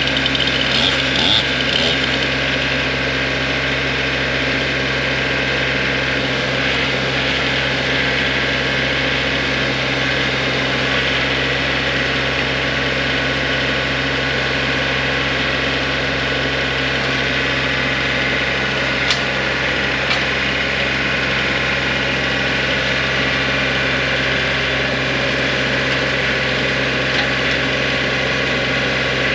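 Tractor engine idling steadily at an even pitch.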